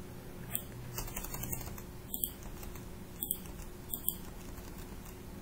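Computer keyboard keystrokes: a quick run of taps about a second in, then a few single key presses spaced about a second apart.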